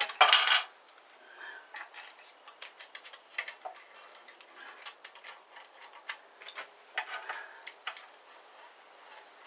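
Hands working a bandsaw's upper blade guide and feeler gauge: one short metallic clatter about half a second in, then scattered quiet clicks and light scrapes of metal on metal as the guide bearing is snugged up and the gauge is checked.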